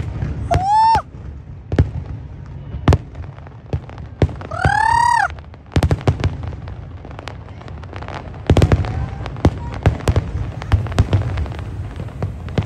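Aerial fireworks bursting in a rapid finale barrage: many sharp bangs over a steady low rumble, crowding together from about six seconds in. Two high whistles that rise and then dip come through, one near the start and a longer one about five seconds in.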